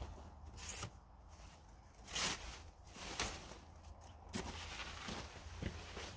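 Clear plastic stretch wrap rustling in several separate swishes as it is pulled off a machine, along with a few footsteps.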